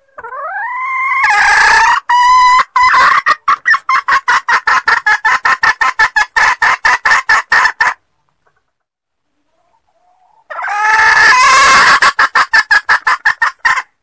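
Female jungle fowl calling, the lure call used to draw in wild males. A note rises in pitch at the start and runs into a fast string of clucks, about five a second, lasting some six seconds. After a short break a second run of clucks starts near the end.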